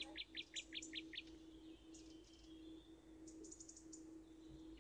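Faint small-bird chirping: a quick run of short, falling chirps in the first second or so, then a few thin, high chirps later, over a steady low hum.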